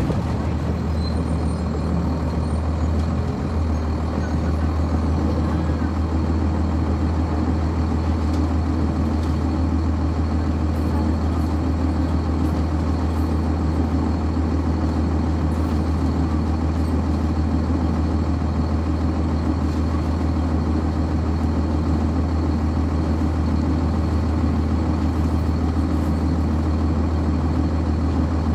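Interior sound of a 1999 Nova Bus RTS transit bus: its Cummins ISC inline-six diesel engine running steadily as a constant low drone, with no change in pitch.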